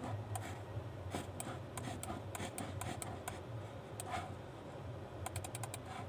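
Computer mouse clicks and scroll-wheel ticks, scattered and irregular, with a quick run of ticks about five seconds in, over a low steady hum.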